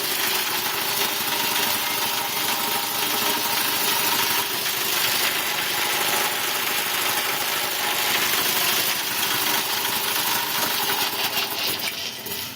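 Belt-driven Quincy air compressor running steadily, pumping up its tank just after starting, with the belts squealing a little because it hasn't run for a while.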